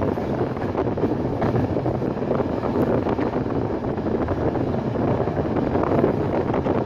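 Passenger train carriage in motion: a steady rumble of wheels on the rails mixed with wind noise, heard from inside at the window.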